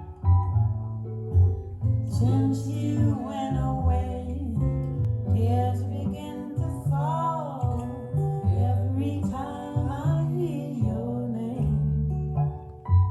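Recorded music playing over a pair of B&W 802 Nautilus hi-fi loudspeakers: plucked guitar over deep, steady bass notes, with a singing voice coming in about two seconds in and falling away near the end.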